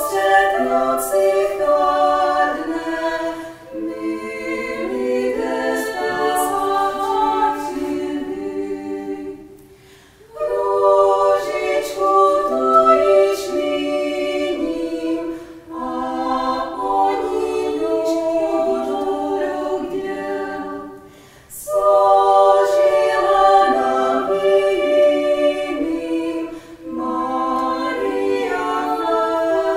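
A small female vocal ensemble singing a cappella in close harmony, in phrases with brief breaths between them, in a hall with some reverberation.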